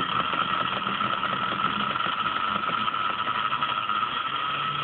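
A 19,000 rpm DC motor running steadily with a high whine, driving a magnet rotor through a timing belt. The rotor is still bumping and dragging on the copper plate beneath it, not yet fast enough to lift off.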